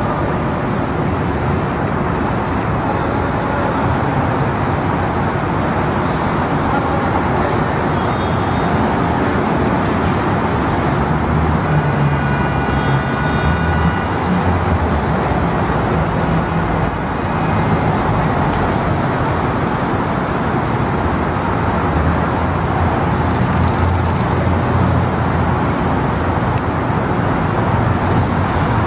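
Steady city street traffic noise, with cars driving past close by.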